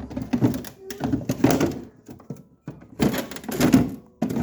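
Items being moved about in a fridge-freezer compartment, with knocks and clatter coming in several bursts with short pauses between them.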